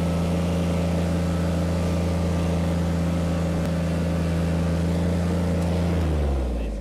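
Compact tractor engine running steadily while driving a PTO-driven prototype stump grinder, then slowing down with its pitch dropping about six seconds in, as the machine is shut down after the stump is ground out.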